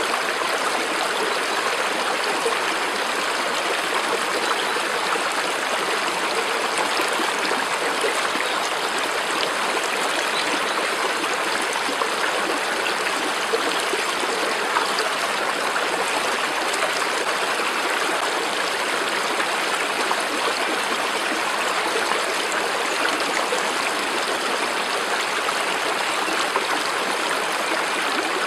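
Water of a stream or brook running steadily: an even, unbroken flowing noise with no pauses or changes.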